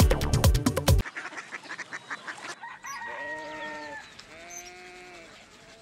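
A loud musical news ident with a heavy beat that cuts off about a second in, followed by a rooster crowing twice.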